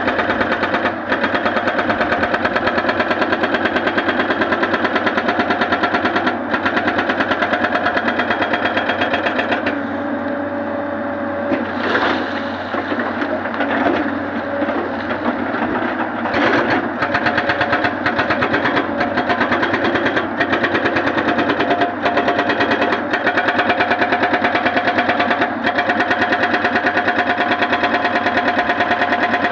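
A hydraulic rock breaker on a Tata Hitachi excavator hammers rock in a rapid, even stream of blows, with the machine's engine running steadily beneath. The hammering stops for several seconds about a third of the way in, with one sharp crack in the gap, then starts again.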